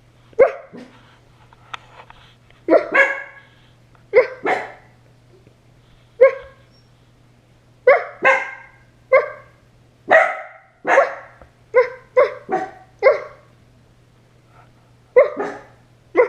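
Dogs barking in short, irregular bursts of one to three sharp barks, with pauses of a second or two between bursts.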